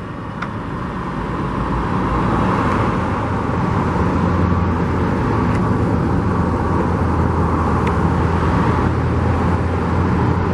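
Road traffic: motor vehicles running with tyre noise, a steady low engine hum that builds over the first couple of seconds and then holds.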